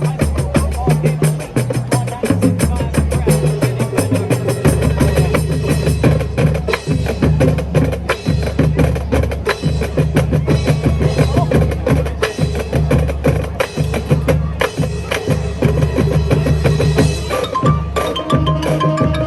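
High school marching band playing a percussion-heavy passage: drums keep up a fast, steady rhythm over shifting low bass notes. Near the end a repeating pitched mallet percussion figure comes in.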